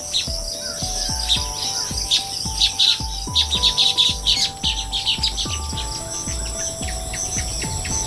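Baya weavers chattering in many quick, high chirps, busiest through the middle and thinning out near the end, over a steady high drone. Quiet background music with held notes and a soft beat runs underneath.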